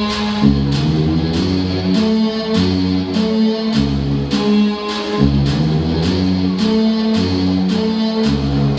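Music with guitar over a steady beat of about two strokes a second.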